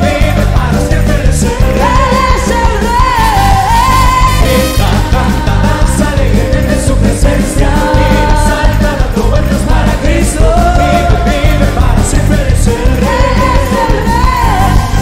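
Live upbeat Christian worship song: voices singing a lively melody over a band with a steady, driving bass beat.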